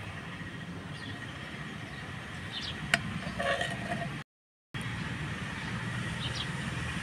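A steady low rumble runs under a sharp click about three seconds in, as a ladle scoops cauliflower curry in a clay pot, with a few faint bird chirps. The sound drops out for half a second just after four seconds.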